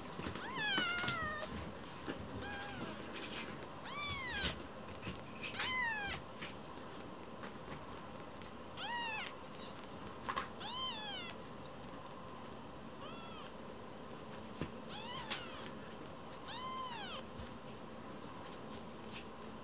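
Very young kittens mewing over and over: about ten short, high-pitched mews, each rising then falling in pitch, spaced a second or two apart, the loudest about four seconds in.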